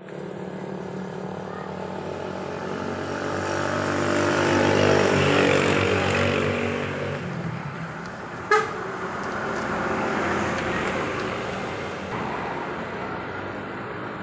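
Basuri multi-trumpet vehicle air horn sounding several tones at once over vehicle and road noise. It swells to its loudest about five seconds in, then fades. A single short sharp toot comes about eight and a half seconds in.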